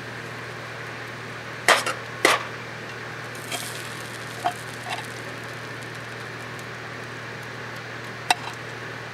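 A few sharp clicks and knocks of objects being handled, the loudest pair about two seconds in and one more near the end, over a steady low hum.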